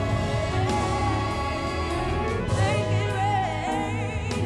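A woman singing a soulful lead vocal with wavering vibrato, accompanied by a symphony orchestra with sustained low notes underneath.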